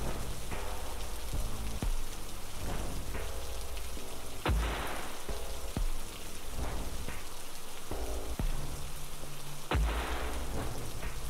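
Steady rain-like noise over a low hum, with a sharp swell about every five seconds.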